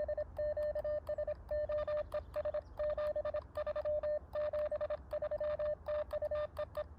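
Morse code (CW) on an Elecraft KX2 transceiver: a single steady beep keyed on and off in dots and dashes, with faint clicks at each keying edge, over a low hum.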